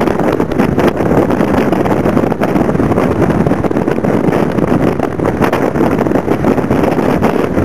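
Blizzard wind buffeting the microphone: a loud, continuous rumbling rush with rapid flutter, no letup.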